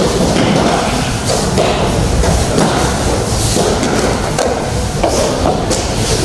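Repeated thuds of aikido practitioners falling and rolling onto foam mats during breakfalls, in a large hall.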